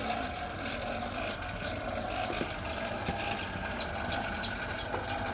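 Chicks peeping: short, high, falling peeps about two a second, starting about halfway through, over a steady low motor hum.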